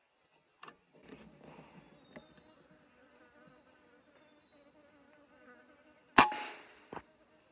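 A .22 (5.5 mm) air rifle fires once about six seconds in, a sharp crack with a short tail, followed under a second later by a fainter click. Insects buzz steadily at a high pitch throughout.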